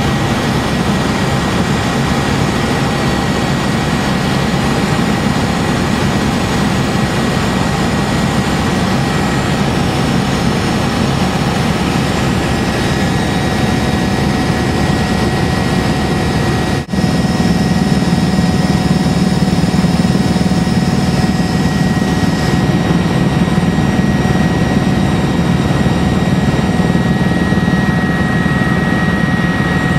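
Helicopter in cruising flight heard from the cabin: a steady, loud engine-and-rotor drone with a faint steady whine on top. It drops out briefly about 17 seconds in, and the low drone is a little louder afterwards.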